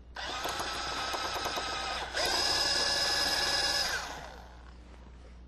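Snap-on power drill drilling out a rivet: the motor whines steadily, speeds up and gets louder about two seconds in as it bites, then spins down about four seconds in.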